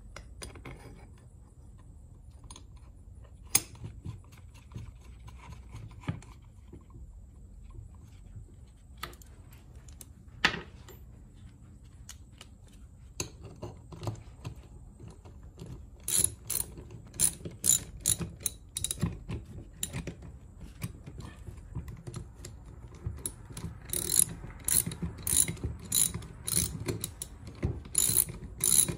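Hand ratchet wrench clicking as bolts are turned while a car starter is reassembled: a few separate knocks in the first half, then from about halfway runs of quick ratchet clicks.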